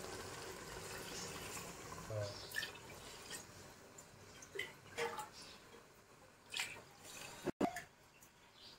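Water being poured glass by glass into a metal pot of chicken masala for biryani, with scattered splashes and drips of water hitting the liquid.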